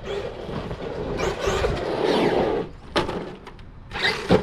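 Traxxas X-Maxx 8S electric RC monster truck accelerating hard, a rising rush of motor whine and tyre noise, then a sharp knock about three seconds in and more knocks near the end as the truck flips over.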